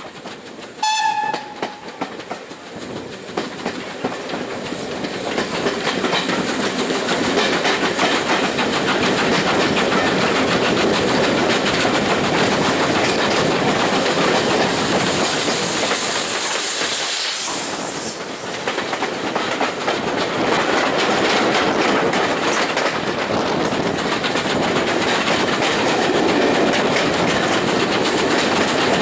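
Steam locomotive whistle gives a short high toot about a second in, from GWR Modified Hall 4-6-0 No. 6988 Swithland Hall. Then the noise of the moving train on the rails, with a clickety-clack, builds over several seconds and runs on steadily, with a brief high hiss partway through.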